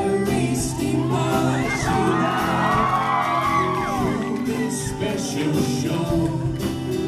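A band playing live: a steady beat of drums and cymbals over bass notes, with a voice sliding up and down through high notes from about a second and a half to four and a half seconds in.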